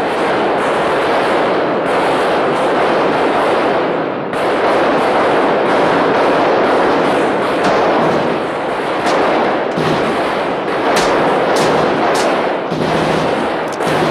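Many handguns firing at once at an indoor firing range, the shots overlapping into a continuous, echoing volley, with a few sharper single cracks standing out in the second half.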